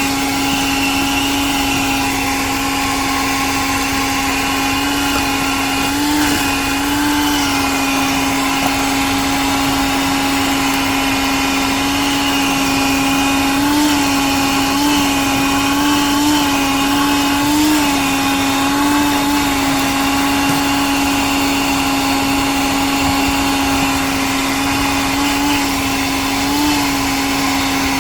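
1980s Bon Aire 1-gallon wet/dry shop vac running with a steady motor whine and airflow hiss. Its pitch rises briefly several times.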